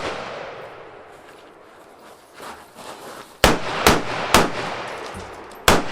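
Four gunshots from an 11.5-inch AR-15 pistol with a SureFire WarComp muzzle device. Three come about half a second apart a little past halfway, and a fourth follows about a second and a half later; each rings out in an echo. At the start, the echo of the previous shots is dying away.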